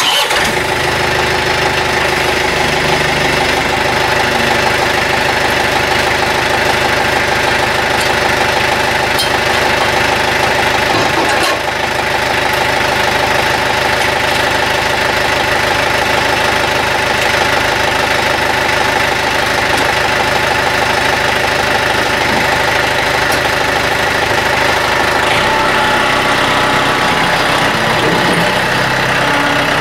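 John Deere 110 TLB backhoe's diesel engine catching at the very start, then idling steadily.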